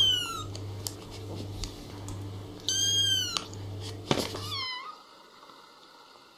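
Very young kitten meowing: three short, high-pitched cries that rise and fall in an arch, one at the start, one about three seconds in and a brief one just after four seconds. A low steady hum under them cuts off suddenly soon after the third cry.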